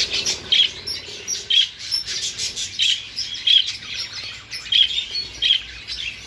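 Caged budgerigars chirping and chattering: busy high twittering with short sharp chirps standing out about once a second.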